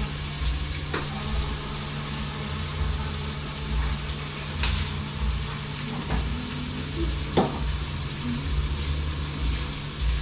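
Tomatoes and spices sizzling as they fry in a pan, with a few sharp clicks of a spoon against the pot as they are stirred.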